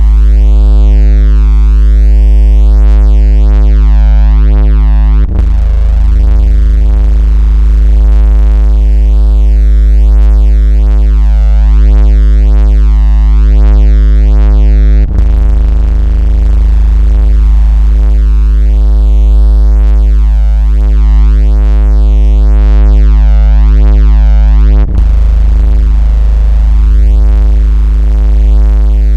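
Loud synthesized 56 Hz bass tone, a steady deep hum with a stack of overtones, made to set a phone vibrating and push water out of its speaker. It breaks for an instant with a click three times, about every ten seconds.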